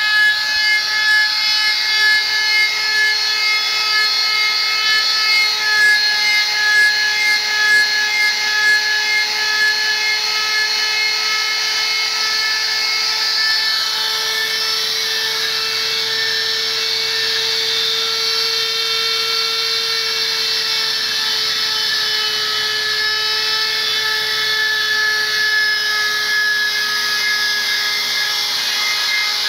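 Die grinder fitted with a V-groove router bit running with a steady high whine as it routes rings into a spinning wooden rosette blank on a metal lathe. For the first ten seconds or so the cutting noise swells and fades about once or twice a second, then it runs steadier.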